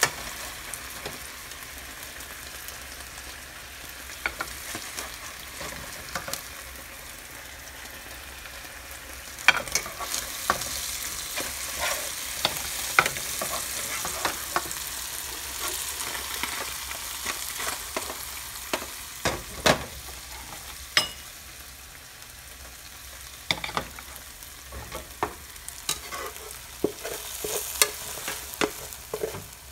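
Fish fillets sizzling in hot oil in a nonstick frying pan, with a metal slotted spatula scraping and clicking against the pan as pieces are turned and lifted out. The clicks come thick from about a third of the way in, the sharpest near the middle.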